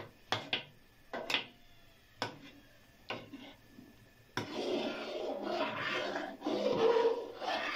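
A metal ladle clinking against an aluminium pot a few times, then, from about four and a half seconds in, a continuous stirring and scraping sound as it is worked through the liquid chicken corn soup.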